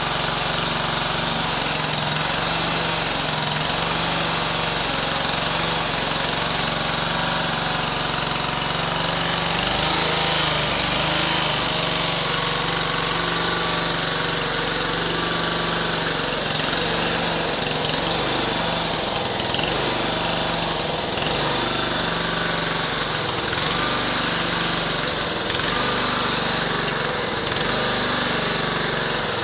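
Honda HRC 216 HXA lawn mower's engine running steadily at a constant speed.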